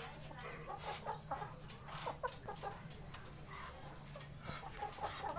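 Chickens, Bangkok game fowl among them, clucking in short, scattered low calls while they feed on the ground, with light clicks and rustles. A faint steady low hum runs underneath.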